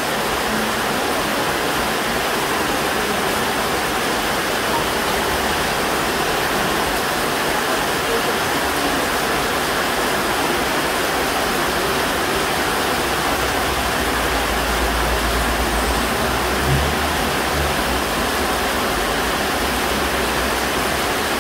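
Heavy rain falling steadily, a dense even hiss, with a brief low rumble about fifteen seconds in.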